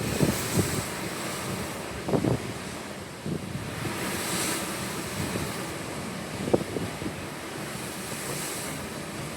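Ocean waves washing steadily with wind blowing on the microphone, giving a few low buffets.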